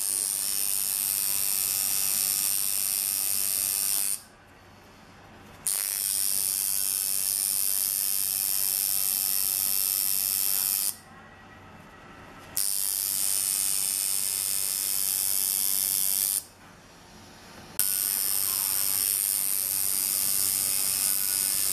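Electric tattoo machine running with a steady high-pitched buzz, switched off three times for a second or two between runs of about four to five seconds.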